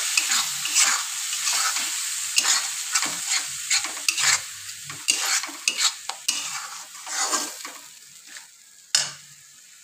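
Puréed tomato frying in onion masala in a steel kadhai, sizzling while a metal spatula stirs and scrapes it, with repeated clicks of spatula on steel. The sizzle dies down toward the end, and one sharp knock of the spatula comes near the end.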